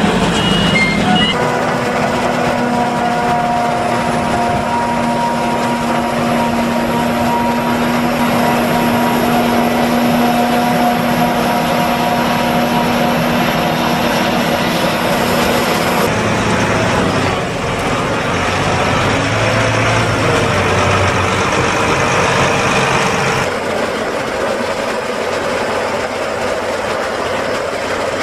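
Heavy harvest machinery running steadily: a Claas Jaguar 950 forage harvester and tractors with forage wagons, giving a dense engine and chopper drone with a steady hum through it. The sound changes character about sixteen seconds in and again about twenty-three seconds in.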